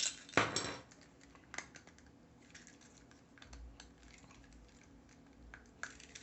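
3D-printed plastic gear parts being handled, clicking and clacking against each other, with a louder brief rattle about half a second in and scattered light clicks after it.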